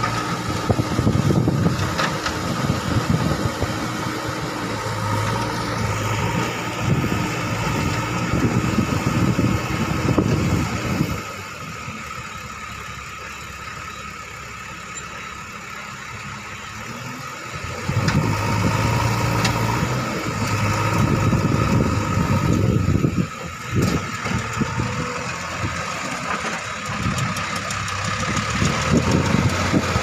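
JCB backhoe loader's diesel engine running hard and unevenly under hydraulic load while the backhoe arm works. About eleven seconds in it drops to a quieter idle, and it picks up again some six seconds later.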